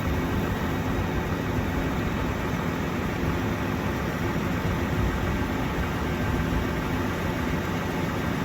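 Farm tractor engine running steadily at a constant level, with a low hum under a broad even noise.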